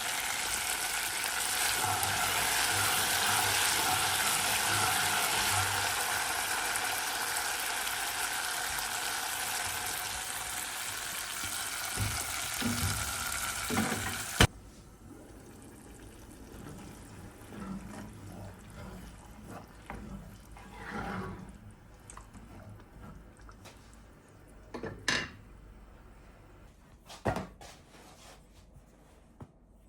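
A steady kitchen hiss that swells over the first few seconds, eases slowly and stops abruptly about halfway through. After it come a few light knocks and clinks of handling.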